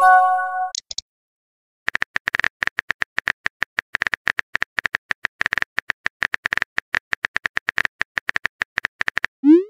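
A short chime as a text message arrives, then rapid on-screen keyboard tap clicks, about nine a second, as a reply is typed, ending in a quick rising swoop sound effect near the end.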